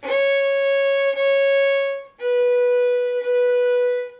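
Fiddle bowed slowly on the A string: two C-sharp notes (second finger), then a step down to two B notes (first finger), each about a second long with a short break between.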